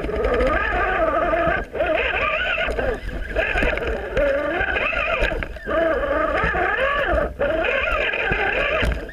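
RC rock crawler's electric motor and gearbox whining, the pitch rising and falling with the throttle as it crawls over rocks, cutting out briefly several times when the throttle is let off.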